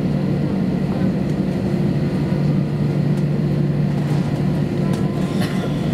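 Steady cabin noise of an Airbus A321-200 taxiing: a constant low hum from the engines at taxi idle over the hiss of the cabin air, heard from inside the cabin. A few faint clicks come about five seconds in.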